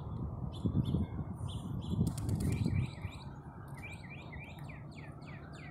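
Small birds chirping, ending in a quick run of short descending notes about four a second, over a low outdoor rumble that eases about three seconds in.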